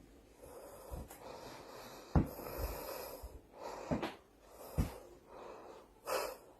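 A dog snorting and breathing noisily in a handful of short snorts about a second apart, the sharpest one near the end.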